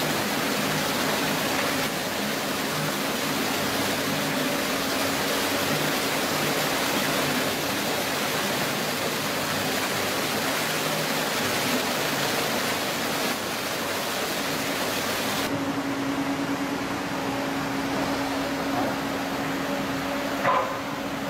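Steady rushing noise of water running through a muddy excavation, under the low, steady hum of a Menzi Muck walking excavator's diesel engine. About 15 seconds in, the high hiss drops away and the hum stands out more. A short knock comes near the end.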